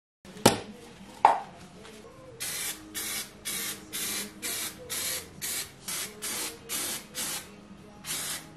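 Two sharp knocks, then an aerosol spray can hissing in about a dozen short sprays, roughly two a second, with a short pause before the last, as it coats a steel circular saw blade.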